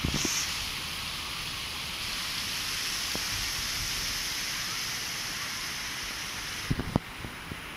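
Steady outdoor hiss, strongest in the high range, which thins out suddenly near the end. A few short knocks come near the end.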